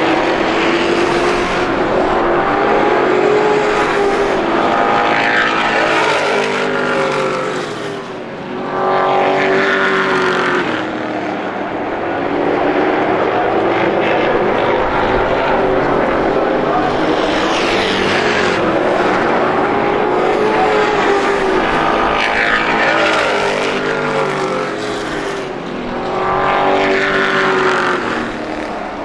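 Race-truck engines at racing speed on a short oval, the engine note swelling and bending in pitch as truck after truck goes past, with brief lulls between the bunches.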